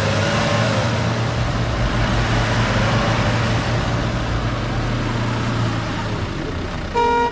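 An off-road vehicle's engine running with a steady low hum, easing off about six seconds in, then a short loud beep just before the end.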